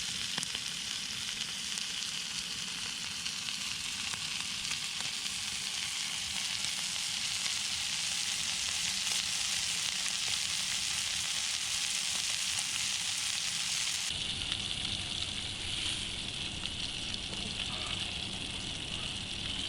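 Sausages frying in a pan over a wood fire: a steady sizzling hiss, a little quieter in the last few seconds.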